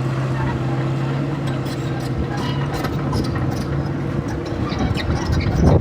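A vehicle engine running at a steady idle-like hum that drops out about four seconds in, with scattered clattering knocks.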